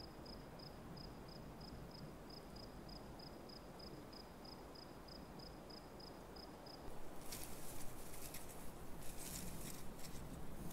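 A cricket chirping in an even rhythm, about three high chirps a second, over faint outdoor ambience. About seven seconds in the chirping stops and a louder crackling rustle takes over.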